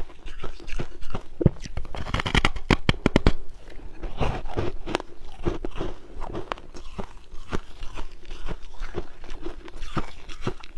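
Someone biting and chewing refrozen ice, with sharp crunches and crackles throughout and a dense run of crunching about two seconds in.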